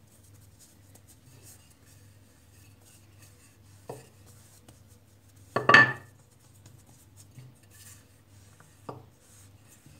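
A wooden rolling pin rolling out a small ball of dough on a counter: soft rolling and rubbing, broken by three short knocks, the loudest about halfway through and a fainter one near the end.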